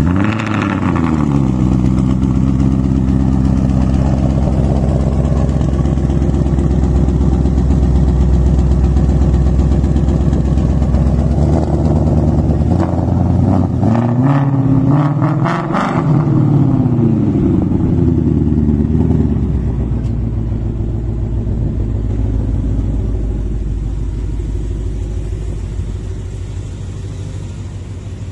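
Ford Mustang GT's V8 engine running through an aftermarket performance exhaust. It rises briefly right at the start, settles to a steady idle, is revved several times about halfway through, then drops back to idle.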